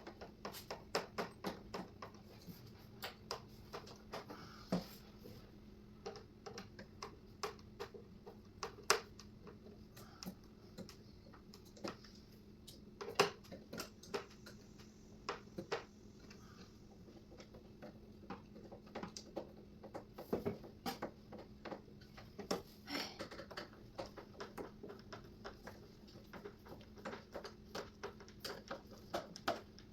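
Irregular small clicks and taps of a hand screwdriver driving small screws into cabinet hinges and of hardware being handled, a few louder knocks among them, over a steady low hum.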